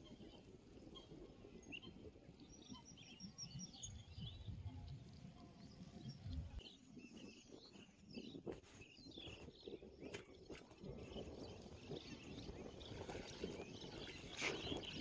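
Faint rural outdoor ambience: small birds chirping on and off over a low rumble of wind, with a few brief clicks in the middle and busier sound near the end.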